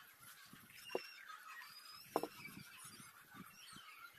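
Quiet handling noises of thin leather being pressed and folded by hand, with two short sharp sounds about one and two seconds in. Birds chirp faintly in the background.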